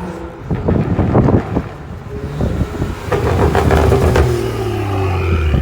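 BMW 535i's turbocharged straight-six with downpipes and aftermarket mufflers, revved and crackling and popping through the exhaust, with a rapid run of pops about three seconds in as the revs fall away.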